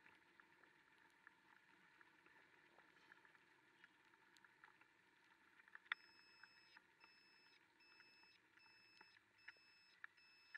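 Faint muffled hiss with scattered small ticks, then, from about halfway through, a scooter's turn-signal beeper giving short two-tone electronic beeps about twice a second.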